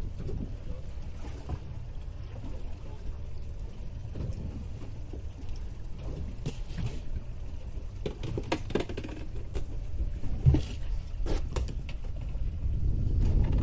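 Wind rumbling on the microphone and sea water splashing against a small boat's hull, with scattered knocks and clatters on deck, the loudest about ten and a half seconds in.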